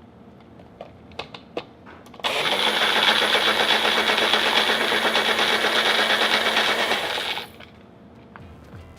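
A few light clicks, then a NutriBullet blender starts and runs at a steady pitch for about five seconds before shutting off.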